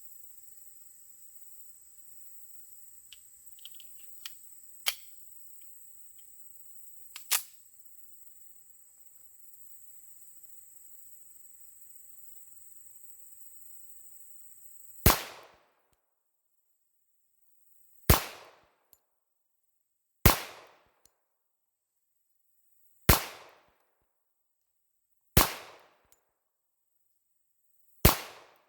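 Six pistol shots from a Springfield Armory 1911 semi-automatic, fired singly about two to three seconds apart in the second half. Before them come a few sharp clicks.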